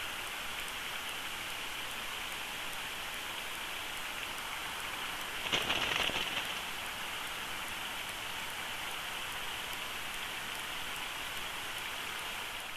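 Steady outdoor hiss on the nest-cam microphone, with a brief louder feather rustle about halfway through as a bald eagle on the nest lifts and shakes her wings.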